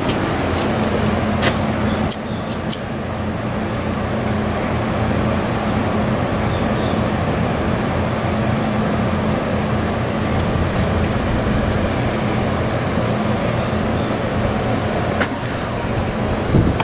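Steady outdoor city noise of traffic, with wind rushing against the microphone and a low steady hum underneath. A few short clicks come about 2 seconds in and again near the end.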